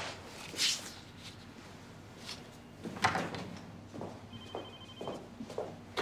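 A telephone rings once with a short electronic ring about four seconds in, against soft rustling and light knocks from handling.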